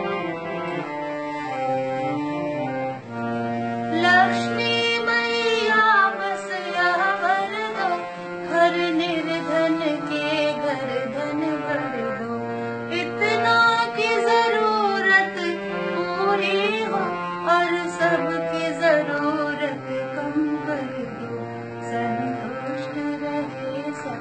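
Harmonium playing held chords of a devotional bhajan melody, joined about four seconds in by a woman's voice singing the tune with gliding, ornamented phrases.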